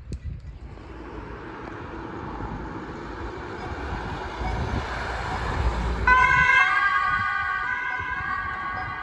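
Red Cross emergency response van driving past, its engine and tyre noise rising as it approaches. About six seconds in its two-tone siren starts, stepping back and forth between two pitches.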